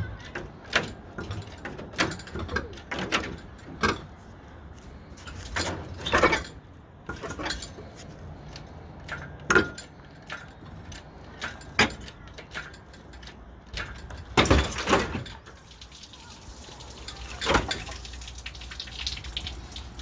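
Irregular metallic clanks, knocks and rattles from an engine crane and its lifting gear as an RB30 six-cylinder engine is hoisted out of the car's engine bay, with a denser run of knocks about three-quarters of the way through.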